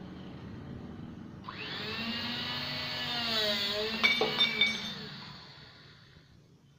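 OGURA HNC-665 electric hydraulic angle cutter's motor starting with a rising whine about a second and a half in, its pitch dipping under load as the blade cuts 65×65×6 mm steel angle. Sharp metallic clanks about four seconds in, then the motor's whine dies away.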